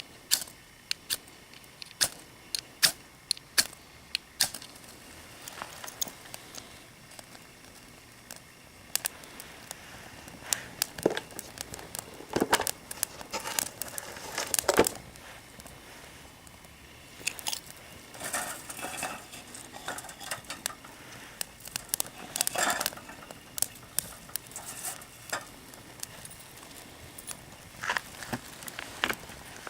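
Fire steel struck against flint: a run of sharp metallic clicks, about a dozen in the first few seconds. Scattered crackling and crinkling follows in clusters.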